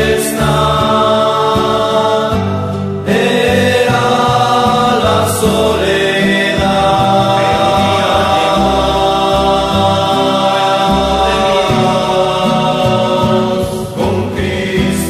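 Christian rondalla music: several voices singing long held notes in harmony over a string accompaniment with a moving bass line.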